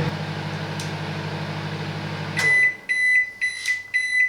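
Silvercrest SMWC 700 D1 microwave oven running with a steady hum, which stops about two and a half seconds in. Several short high beeps follow, signalling that the cooking program has finished.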